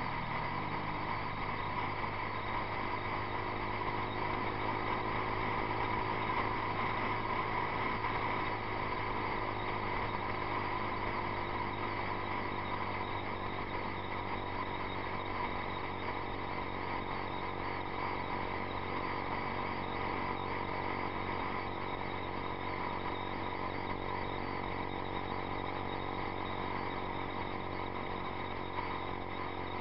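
A 2012 Yamaha YZF-R15's single-cylinder engine running through a Two Brothers Racing exhaust at a steady cruise, with a brief dip in engine pitch about half a second in.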